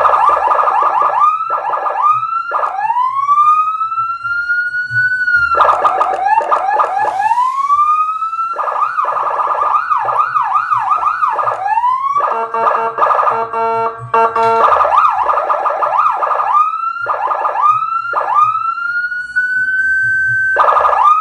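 A 200-watt Senken electronic siren speaker, loud, cycling through its tones: slow rising wails, rapid up-and-down yelp sweeps, and in the middle about two seconds of a fast-pulsed, buzzy horn tone.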